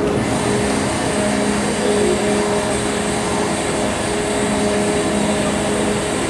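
Car ferry's engines and machinery running with a steady drone and rumble while the ship is berthed alongside the pier.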